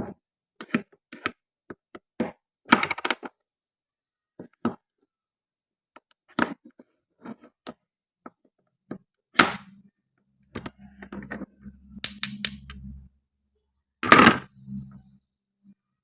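Toy kitchen play food being handled and cut: scattered light clicks and taps of wooden and plastic pieces, with a few short, louder scraping rips. A low hum runs for about two seconds past the middle.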